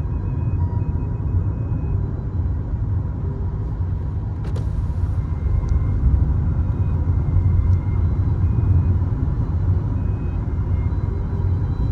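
Steady low rumble of a car on the move, heard from inside the cabin: engine and road noise, with one brief click about four and a half seconds in.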